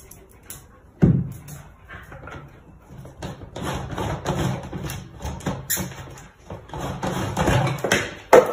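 A cat pawing and pushing at hollow plastic barrels with lids: scattered knocks and rattles of the plastic, with a sharp thump about a second in and another loud hit near the end.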